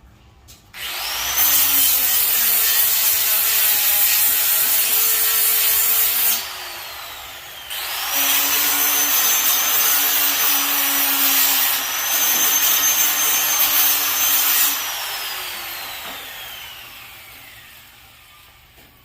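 Electric grinder grinding down welds so the legs sit flat: the motor spins up with a rising whine and grinds in two long passes, dipping briefly between them, then winds down with a long falling whine.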